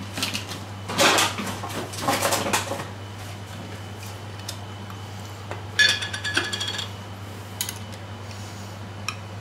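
Glass jar of gherkins being handled: rustling and knocks as its metal twist-off lid is worked open, a brief metallic clatter about six seconds in, then a few light clinks of a utensil against the glass.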